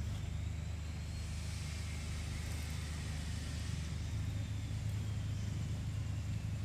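A steady low motor hum, as of an engine running nearby, with a faint high whine slowly falling in pitch over it.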